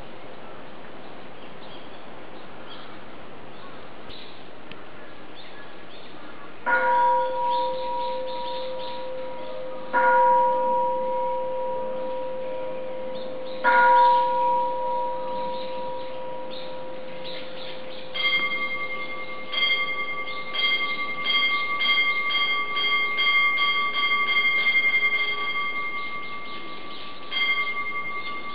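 Bell struck three times a few seconds apart, each stroke ringing on and slowly fading, then a quicker, uneven run of strikes on a higher-pitched bell. A steady hiss runs underneath.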